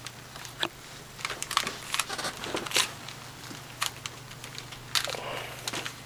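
Rubik's Cube being turned in the hands, its plastic layers making irregular clicks and rattles.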